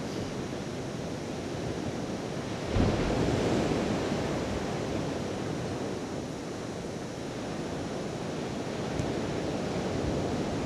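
Wind on the microphone over the steady wash of sea surf, swelling suddenly and loudest about three seconds in, then easing off.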